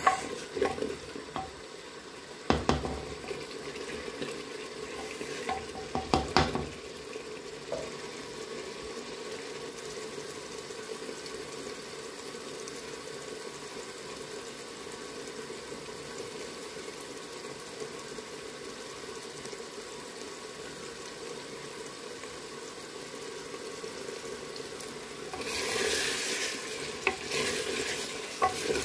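Chicken frying in oil in a clay pot, stirred with a spoon: a steady sizzle, with two knocks of the spoon against the pot in the first seven seconds. Near the end a louder rush of hiss lasts about three seconds. The oil is starting to separate, the sign that the bhuna stage is nearly done.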